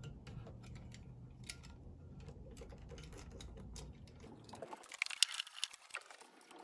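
Plastic-sheathed electrical cable rustling and scraping as it is pushed through a clamp into a metal junction box. It runs over a low rumble, with a burst of sharp clicks and scrapes over the last two seconds.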